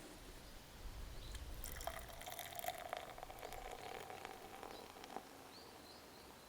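Liquid being poured for about two seconds, starting about a second and a half in, with small clicks and splashes.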